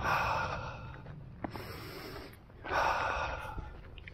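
A man drawing two long, deep breaths in, about a second each, smelling the sea air, over a steady low rumble.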